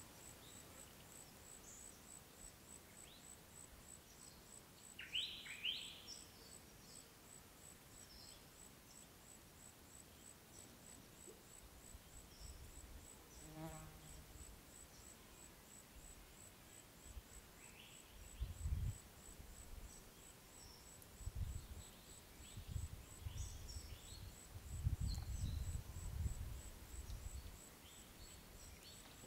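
Faint outdoor ambience: a steady high-pitched ticking about twice a second, a few short chirps, and several low rumbles in the second half.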